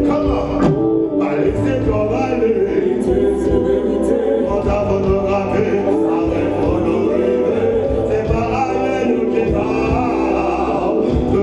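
Live reggae band playing, with a male lead singer and backing singers singing together over keyboard and drum kit.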